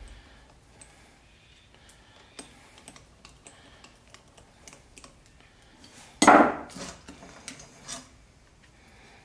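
Hand tools and engine parts clinking as a socket wrench works the cylinder-head nuts of a small Honda-clone motorcycle engine: scattered light metallic clicks, one louder clatter about six seconds in, and a few knocks near the end as the cylinder head is lifted off.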